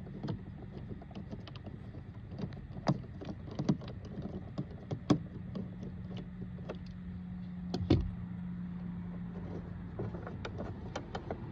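Scattered small clicks and taps of hand tools and plastic interior trim being handled, with a sharper knock about five seconds in and another near eight seconds, over a steady low hum.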